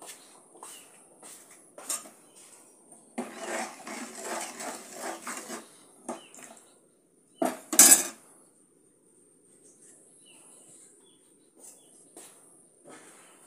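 Kitchen clatter: scattered clinks and knocks of utensils and dishes, a busier rattling stretch in the middle, and a pair of loud sharp knocks about eight seconds in, over a faint steady high hiss.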